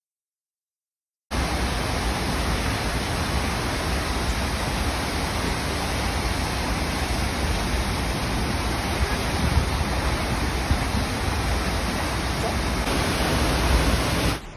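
Multnomah Falls pouring: a loud, steady rush of falling water that starts abruptly about a second in, after silence.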